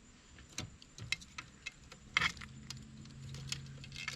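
Chainsaw guide bar and chain being fitted onto a Husqvarna 395 powerhead: scattered light metallic clicks, clinks and jangles of the chain and bar being handled. A faint steady low hum comes in about halfway.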